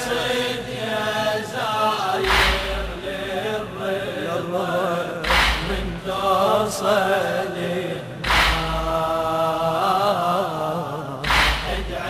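A voice chanting an Arabic devotional poem to Imam al-Rida, long held notes wavering in pitch, with a heavy thump about every three seconds, four in all.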